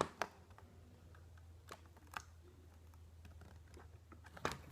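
Hot Wheels toy car blister pack handled in the hands: a few scattered light clicks and taps of plastic and cardboard, over a faint low hum.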